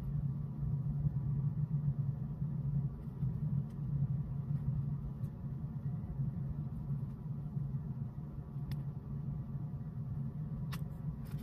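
Steady low hum, with a few faint clicks near the end.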